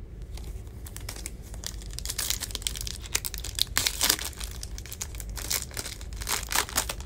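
Foil trading card pack being torn open and its wrapper crinkled by hand: irregular crackling rustles, busiest in the middle.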